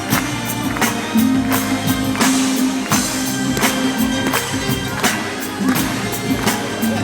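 Instrumental music with a steady percussion beat over a held low chord, with no singing.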